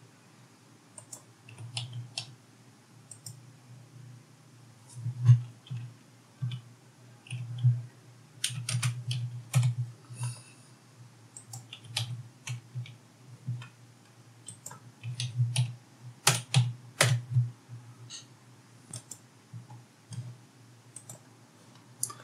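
Typing on a computer keyboard: irregular short keystroke clicks in bursts with pauses between them, as numbers are keyed in.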